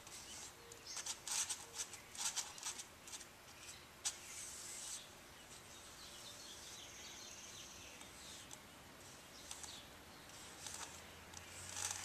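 Fiberglass cloth being handled and brushed over a foam form: short, dry rustling and rubbing strokes, a quick run of them in the first three seconds and a few more near the end.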